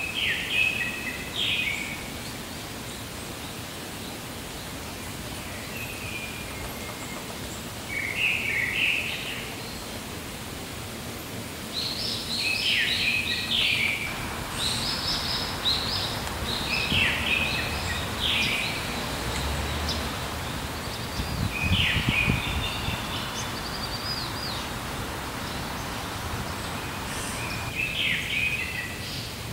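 Small birds chirping in short, quick bursts of high notes, repeated several times and busiest through the middle, over steady outdoor background hiss.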